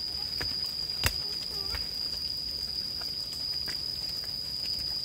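A steady high-pitched insect drone, with scattered light clicks and one sharp knock about a second in.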